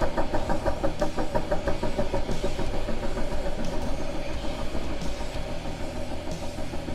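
Three-wheeled ATC's engine running under throttle on a dirt trail, growing fainter as the machine pulls away.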